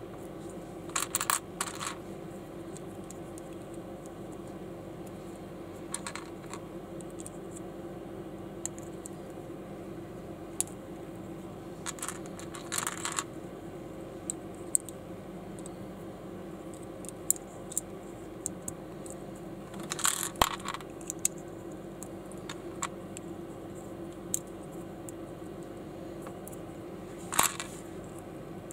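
Small Panlos Lego-compatible plastic bricks clicking and snapping as pieces are pressed together, heard as scattered single clicks and four short clusters of clicks. A steady low hum runs underneath.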